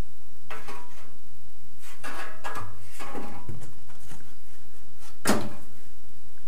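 Boards being shifted by hand: a few scrapes and knocks of wood, with one sharp knock about five seconds in, the loudest.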